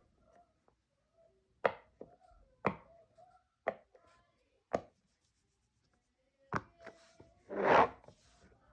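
Silicone pop-it fidget toy bubbles being pressed, giving single sharp pops about once a second. Near the end there is a louder noisy sound lasting about half a second.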